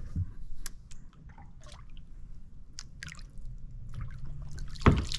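Kayak paddle blade dipping into the water and dripping as it nudges a floating, stunned crappie, with small splashes and light ticks. Near the end comes one louder thump.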